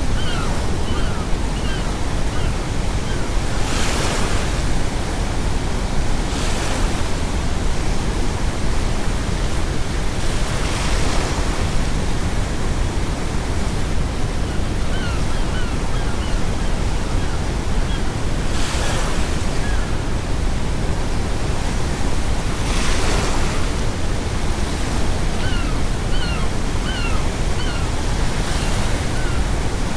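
Sea waves breaking about six times, each a hissing surge, over a steady deep rumble of brown noise. Gulls call in scattered clusters of short, quick cries.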